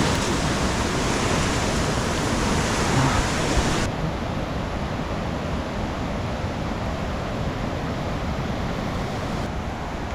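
Steady rushing noise of heavy rain and running water. About four seconds in, the hiss becomes duller and a little quieter.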